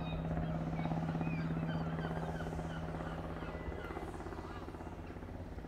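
Bristow coastguard helicopter flying at a distance: a steady low engine drone with a rapid, even rotor chop, easing slightly toward the end. Small birds chirp over it.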